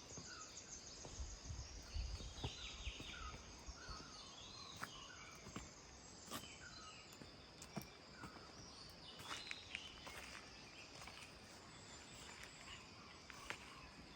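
Faint outdoor ambience: small birds chirping in short repeated calls over a steady high insect hum, with a few soft clicks.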